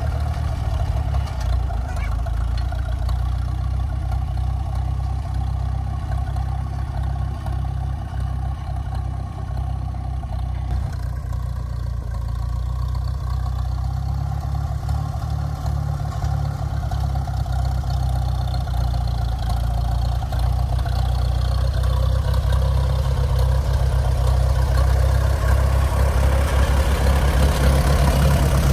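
A vehicle engine running steadily at a low idle, growing somewhat louder in the last third.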